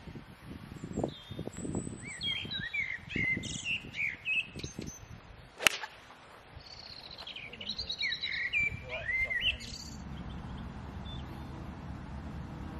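Birds chirping and trilling, cut through about two thirds of the way in by one sharp crack of a golf club striking the ball off the tee, the loudest sound. Near the end the birdsong stops and a steady low background noise takes over.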